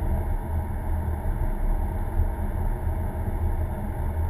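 Car's engine and tyre-on-road noise heard from inside the cabin while driving at a steady pace: a steady, low-pitched hum.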